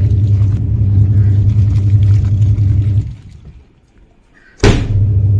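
Twin-tub washing machine's wash tub running: a steady low motor hum as the pulsator churns the soapy load. The hum cuts out about three seconds in, and near the end a sudden loud knock comes with the hum starting again.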